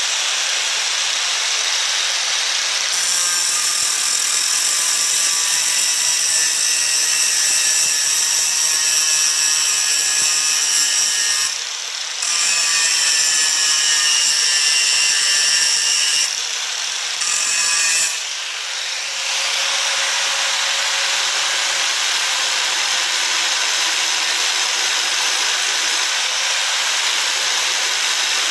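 Angle grinder grinding down the pins of baler chain links so the links can be broken apart. A high whine runs over a steady grinding hiss for about the first two-thirds, with two brief easings. After that a plainer hiss goes on without the whine.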